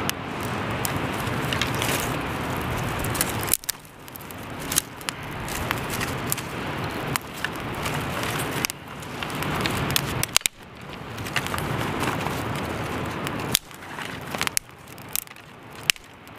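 Kindling fire of dry ash and conifer twigs crackling with many sharp pops while dry sticks are rustled and shifted over it. Underneath runs a rushing noise that builds up and breaks off suddenly about four times.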